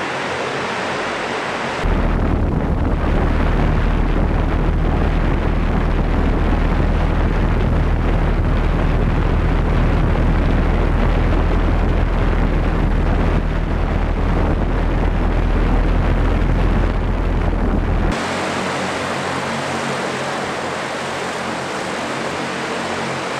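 Volocopter VC200's electric rotors humming steadily in several tones as it hovers. About two seconds in, the sound switches abruptly to a loud low rumble of rotor downwash buffeting the microphone, which switches back to the rotor hum about sixteen seconds later.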